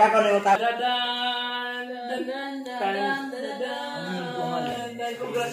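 A solo voice singing slowly in long held notes, the pitch moving only a little between them.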